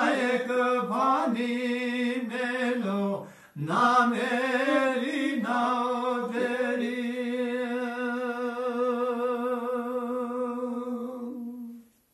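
A man's unaccompanied voice chanting a devotional melody in long, wavering held notes. There is a short breath break about three and a half seconds in, then one long held note that fades and stops at the end.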